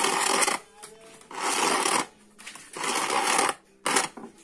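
Black Diamond twisted-square trimmer line being pulled hand over hand out through the centre hole of its plastic spool. Each pull is a rasping swish of about half a second; there are four, and the last one is short.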